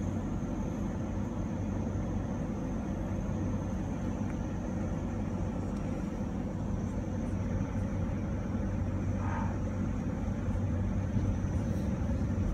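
Car engine and road noise heard from inside the cabin: a steady low rumble, getting a little louder near the end as the car moves off.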